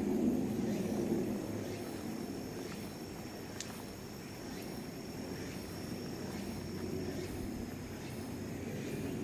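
Outdoor ambience: a steady low rumble with the thin, steady high trill of insects above it, and a single sharp tick about three and a half seconds in.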